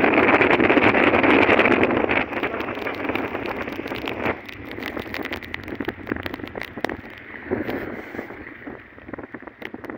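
Rushing wind and road noise on a phone's microphone from a moving vehicle in heavy rain, with many sharp ticks of raindrops striking the phone. The rush is loudest for the first two seconds and drops away after about four seconds.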